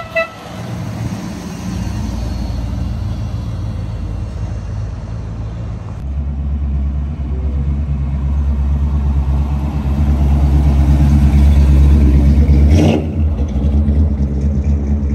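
A car horn toots twice quickly, then a passing vehicle's engine and exhaust rumble at low speed, growing loud and deep as a white Ford Ranger pickup with a hood scoop drives past and pulls away. A single sharp crack about 13 seconds in.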